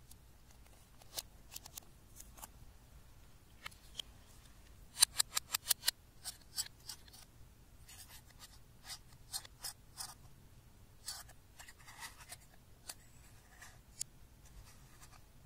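Sharp clicks and short scratches of a thin metal pick digging and scraping pressed powder blush out of a plastic makeup compact. The loudest part is a fast run of about six sharp clicks a little after four seconds in, with scattered softer clicks and scrapes before and after.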